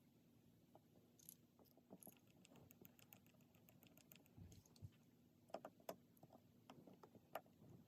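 Faint scattered clicks and ticks of a precision screwdriver and small parts working the pentalobe screws back into the bottom of an iPhone XS Max, with a few louder clicks near the end.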